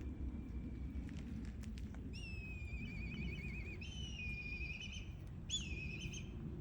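Three high whistling animal calls. The first is a wavering trill lasting nearly two seconds, then a steadier call, then a short one near the end, over a steady low background rumble.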